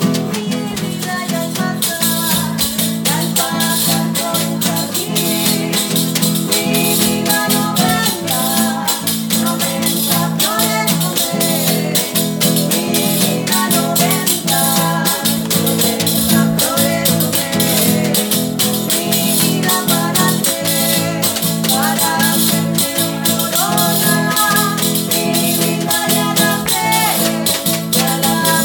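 Live acoustic song: women singing together to a strummed acoustic guitar, with a tambourine's jingles keeping a steady, quick rhythm.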